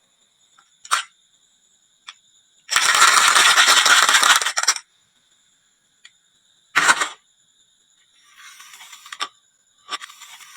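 Marbles clattering down a wooden marble run and dropping into toy trucks. A single sharp clack comes about a second in, then a dense two-second clatter of many marbles in the middle, then more clacks and lighter rattling near the end.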